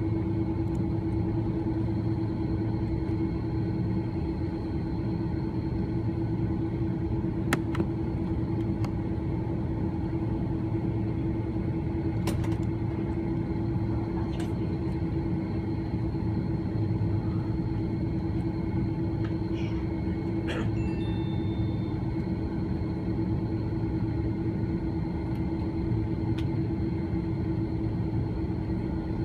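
Cabin noise of an Airbus A330-300 taxiing: a steady rumble with a constant hum, broken by a few faint clicks, one about a third of the way in and a cluster about two thirds in.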